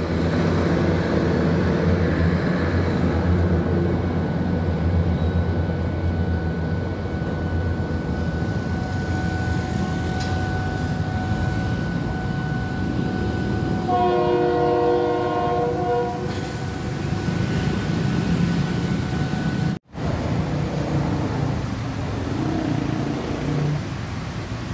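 A passenger train passes, with a steady low rumble of the locomotive and coaches through the first several seconds. About fourteen seconds in, a train horn sounds a chord of several tones for about two seconds.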